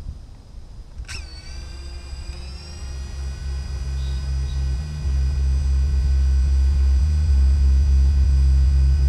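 DJI FPV drone's motors spinning up about a second in and then idling with a steady high whine of several tones, over a low rumble that grows steadily louder.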